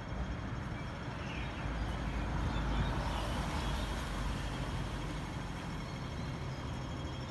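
Road traffic at a city junction: a passing vehicle's deep rumble swells to a peak about three seconds in and then eases off.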